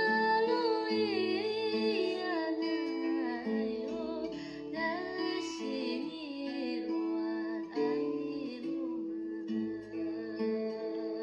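Background music: plucked acoustic guitar with a gliding lead melody over sustained chords and bass notes.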